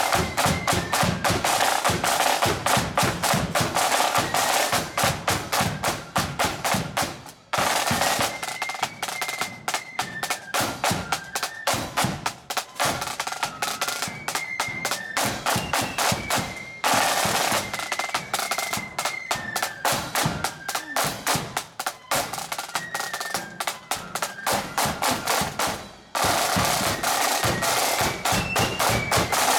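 Marching band playing: a rank of side drums beating rapid strokes and rolls under a high-pitched melody. The music cuts off abruptly and starts again three times.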